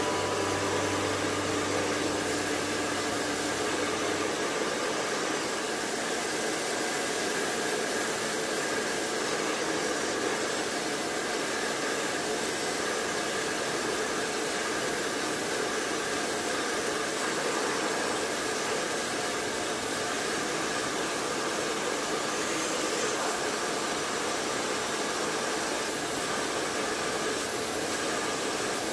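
Handheld blow dryer with a concentrator nozzle running steadily, blowing hot air onto a vinyl wristband skin to shrink it onto the band.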